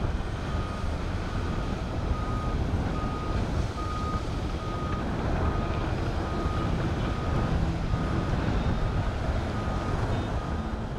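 Construction vehicle's backup alarm beeping a single steady tone, a little more than one beep a second, over a steady low rumble.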